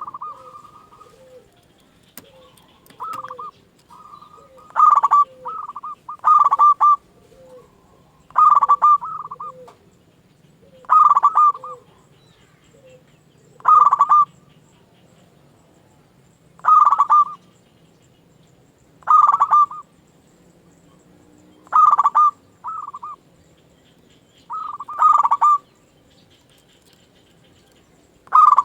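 Zebra dove (perkutut) cooing: loud, ringing phrases of a few quick notes, repeated every two to three seconds. Fainter, lower single coos fall between the phrases in the first half.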